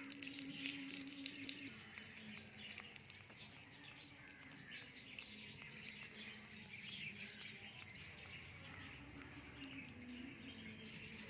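Wheat-flour poori deep-frying in hot oil in a miniature steel pan: the oil sizzles with a steady patter of small pops.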